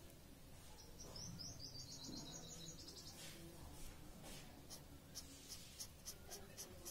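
Faint scratching strokes of a pen on paper, short strokes repeating about twice a second in the second half. A brief high, rapid chirping trill sounds in the background about a second in.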